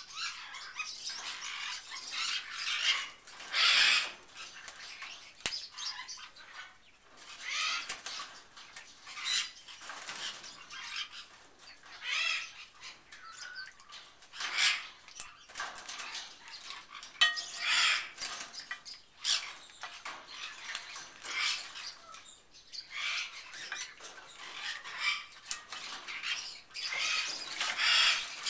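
Channel-billed toucan bathing in a water bowl: irregular bursts of splashing and wing-flapping in the water, recurring every second or two.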